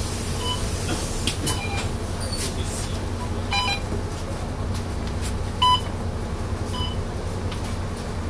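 Mercedes-Benz Citaro city bus's diesel engine idling at a stop with a steady low hum, while the fare card reader by the door gives about five short beeps as passengers tap their cards on boarding. The loudest beep comes a little past the middle.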